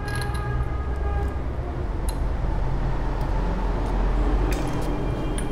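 Steady low rumble of background street traffic, with a few light metallic clicks from a spark plug wrench being worked on the motorcycle engine's spark plug.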